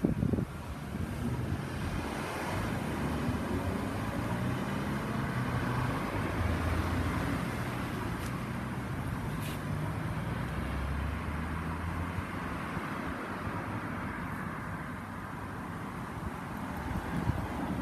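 Road traffic at an intersection: cars driving past, with a steady low engine hum that is strongest through the middle.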